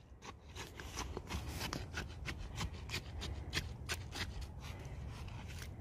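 A stick jabbed into wet concrete mix around a post set in its hole, making soft gritty scrapes and clicks, a few a second, as the concrete is worked down around the post.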